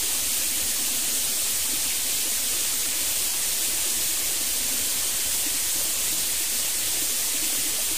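Small stream running, a steady, even rushing hiss with no change.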